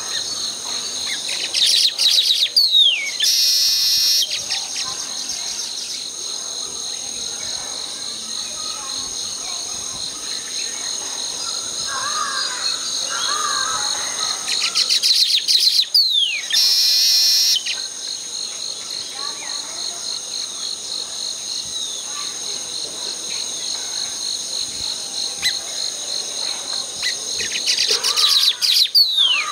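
Baya weaver song, heard three times about thirteen seconds apart: a fast run of ticking chits, a falling whistled note, then a short harsh wheeze. A steady high-pitched insect drone runs underneath, with soft chirps from other birds in between.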